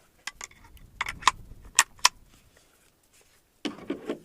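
A series of sharp clicks and knocks, about six in the first two seconds, followed by a brief voice near the end.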